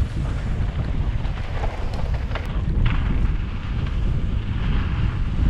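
Wind buffeting the microphone of a mountain bike rider on a fast trail descent, a steady low rumble mixed with tyre and trail noise, with a few sharp rattles about two and a half seconds in.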